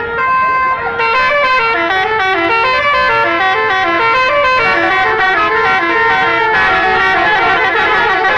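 Indonesian bus telolet horns, multi-tone musical horns playing quick stepping melodies. From about six and a half seconds in, more horns sound over each other at once.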